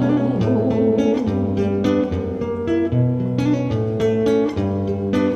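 Nylon-string classical guitar playing alone in an instrumental interlude between verses: plucked chords over a changing bass line.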